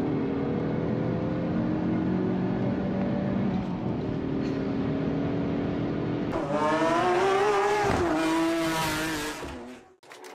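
High-performance car engines on a race track: one car's engine note climbs steadily as it accelerates, then about six seconds in a louder car revs hard close by, its pitch rising and then dropping before it fades away near the end.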